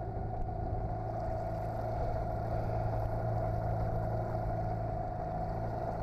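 Motorboat engine running at a steady speed, an even drone that holds without change.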